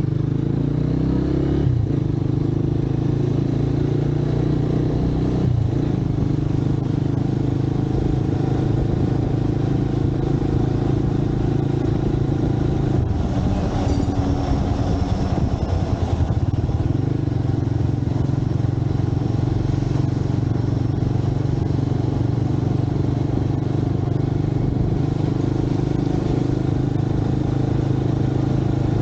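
Motorcycle engine running steadily while riding in city traffic, heard from a camera mounted on the bike. About halfway through the engine note drops and goes rough for a couple of seconds, as when slowing or changing gear, then steadies again.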